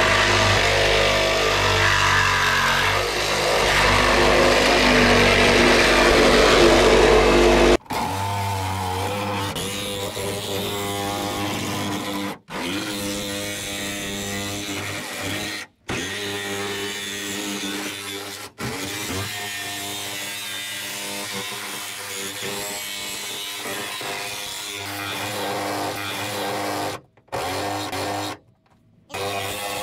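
Cordless drill running as it bores into the sheet-metal roof of an SUV. The loudest, deepest stretch comes first, then shorter stretches cut off abruptly several times.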